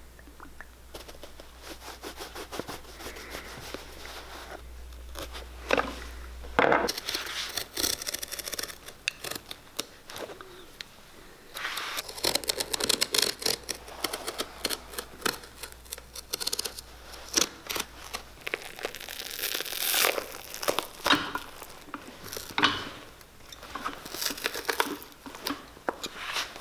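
Old leather sole being pried and torn off a welted dress shoe, where it is held with nails: irregular tearing, crackling and sharp snaps. It is fairly quiet at first and grows louder and busier after about seven seconds.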